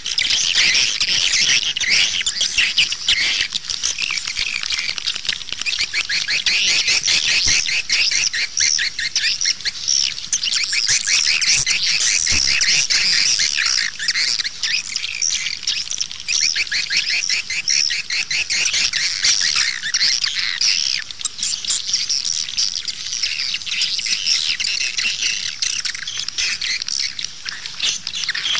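Swiftlet lure call recording: a continuous high-pitched twittering of many swiftlets made of rapid short chirps and clicks. This is the 'outside' call that swiftlet-house keepers play to draw swiftlets in.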